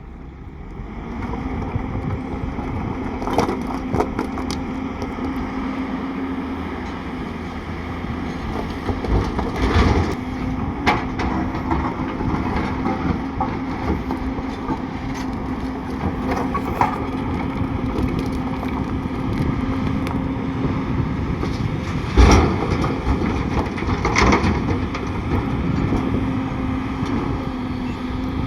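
Heavy diesel earthmoving machinery running steadily at a constant engine note, with a few sharp clanks and crunches of stone and soil being moved, the loudest about two thirds of the way through.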